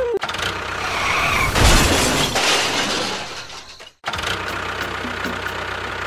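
A loud, noisy crash-like burst is loudest about two seconds in and dies away. After a sudden cut it gives way to a steady tractor-engine idling sound effect.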